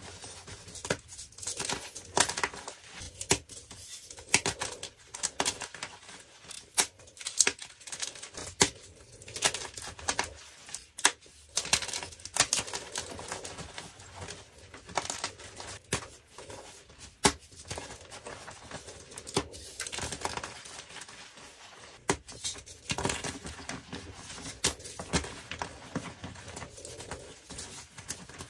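Dyed gym chalk blocks crushed and crumbled by hand, one block after another: irregular dry crunches and snaps as the chunks break, with softer gritty crumbling of chalk pieces and powder between them.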